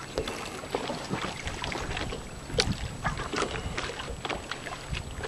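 A sailboat under way: water washing along the hull and wind buffeting the microphone, with scattered small splashes and clicks.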